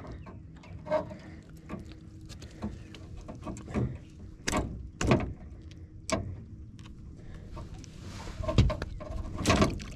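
Scattered knocks and clunks of a fish and fishing gear being handled in the boat: single sharp knocks every second or two, then a quicker cluster near the end.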